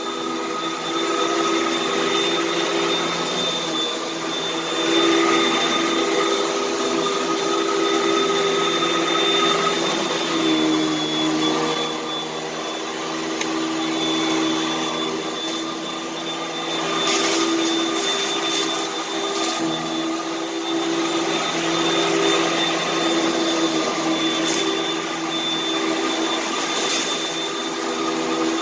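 Vacuum cleaner motor running steadily with a high whine, its pitch dipping slightly about ten seconds in, with a few sharp ticks over it in the second half.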